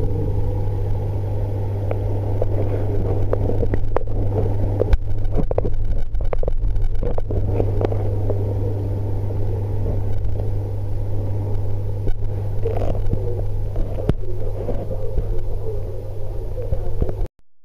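Aquarium pump running with a steady low hum and a rumble beneath it, with scattered light knocks; it cuts off suddenly near the end.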